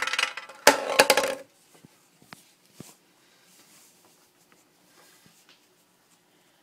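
A clatter of small hard objects knocked over onto a tabletop for about a second and a half, then a few light taps.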